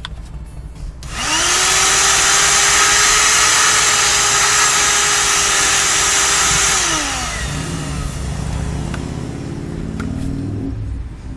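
Small portable wet/dry shop vacuum switched on about a second in, its motor spinning up to a steady high whine. It is switched off about six seconds later and winds down, followed by low rumbling and a couple of light clicks.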